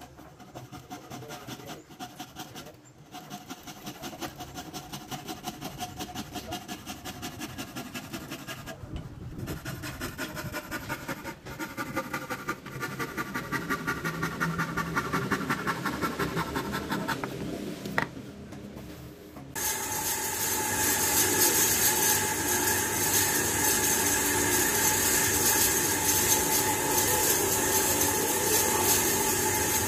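Quick, even rubbing strokes against the turned wooden vase base, slowly growing louder. About two-thirds of the way in they stop abruptly, and a louder steady hiss with a faint hum takes over.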